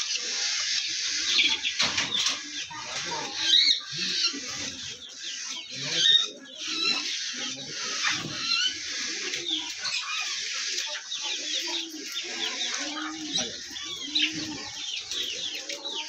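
Many caged birds calling at once: a dense, continuous chatter of small birds chirping, with lower clucking and cooing underneath.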